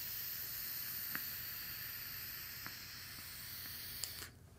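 Long draw on a Savour RTA rebuildable tank: a steady hiss as air is pulled through the tank's restricted airflow past the firing coil, with a few faint ticks. The draw ends suddenly near the end.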